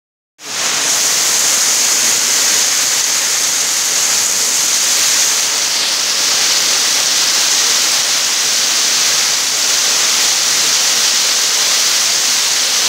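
Very heavy rain pouring steadily onto a street, a dense, even hiss with no let-up.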